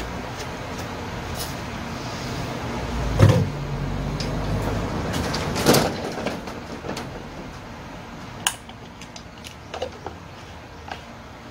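Handling noises as a chainsaw is refuelled: a heavy thud about three seconds in, a clatter near six seconds, then a few light clicks, over a steady background hiss.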